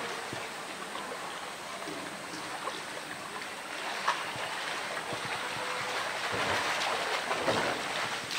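Pool water splashing and sloshing as a polar bear wrestles a plastic drum in the water, with water running out of the drum. A single sharp knock about four seconds in, and louder splashing near the end as the bear climbs out of the pool.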